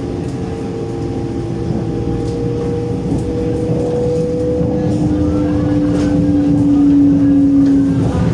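Electric commuter train running: a steady rumble with two held motor tones that drift slowly in pitch, growing gradually louder. The lower tone cuts off near the end.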